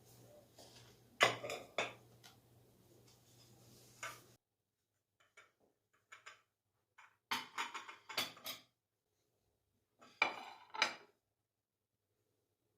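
Dishes and cutlery clinking and clattering in three short bouts of sharp knocks.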